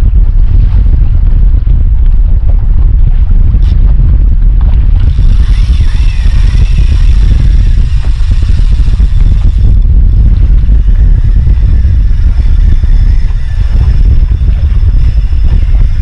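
Strong wind buffeting the microphone: a loud, steady low rumble, with a brighter hiss and a few faint tones for a few seconds around the middle.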